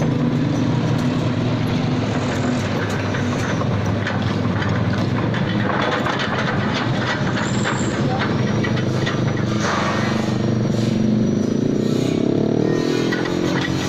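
Excavator engine running steadily, its pitch rising near the end.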